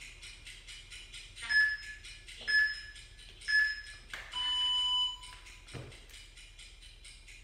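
Interval timer countdown for a HIIT workout: three short beeps a second apart, then one longer, higher beep marking the start of the work interval. About a second later a thud as hands land on the tile floor.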